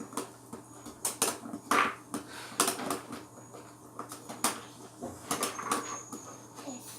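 Slime being squeezed and worked by hand, giving irregular sticky clicks and pops, about two a second.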